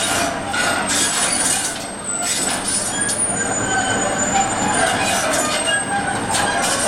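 Heavy construction machinery working continuously: a dense, steady din with high metallic screeching tones over it.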